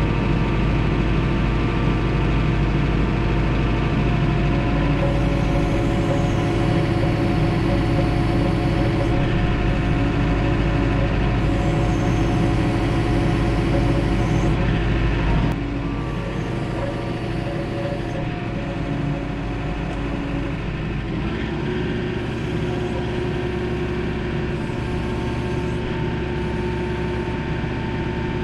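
John Deere 4066R compact tractor's diesel engine running steadily while the tractor drives with a load of lumber on its front loader's pallet forks. About halfway through the engine note changes and the sound gets a little quieter.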